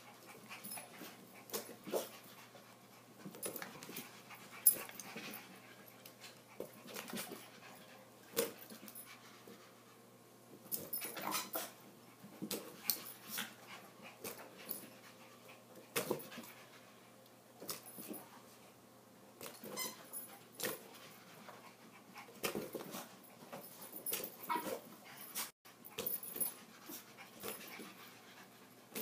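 Yorkshire terriers playing and panting, with short dog noises and irregular scuffles and knocks as they jump about on the carpet; one sharp knock about five seconds in is the loudest sound.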